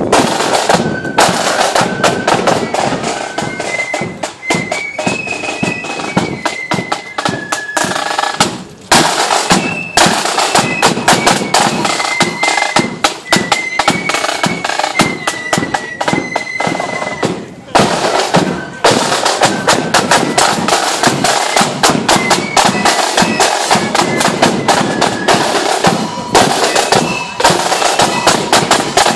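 A marching flute band playing: a row of snare side drums beats a fast, dense rhythm under a high flute melody, with short breaks in the drumming about nine and eighteen seconds in.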